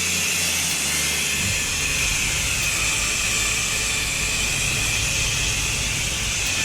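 Petrol-engined pressure washer spraying a patio: the steady hiss of the high-pressure water jet over the low drone of the machine's engine, with the low rumble getting rougher about a second and a half in.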